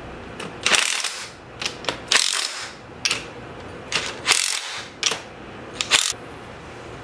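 Cordless impact wrench tightening the bolts of a BMW E30 differential cover in three short bursts of about half a second each, followed by a couple of quick blips near the end.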